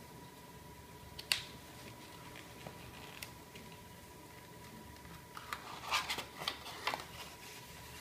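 Hands handling the stiff card pages of a pop-up book: a single sharp tap about a second in, then a cluster of quick scrapes and clicks near the end as a CD is worked out of its cardboard pocket in the back page.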